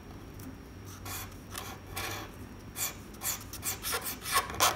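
Felt-tip marker (a Zebra marker) scratching across paper in a series of short, irregular strokes as lines of a stick figure are drawn.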